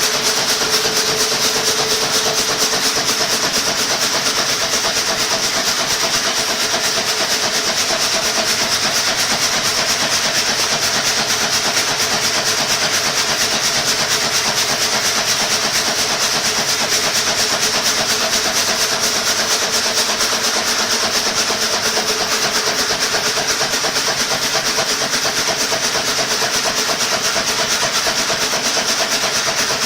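Sawdust conveyor machinery running steadily: a constant mechanical hiss with a steady hum and a high whine that does not change.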